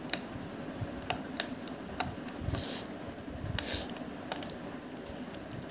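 Scattered clicks of a computer mouse and keyboard as the view is rotated and panned with Shift and the middle mouse button. Two short hissing rustles come about two and a half and three and a half seconds in.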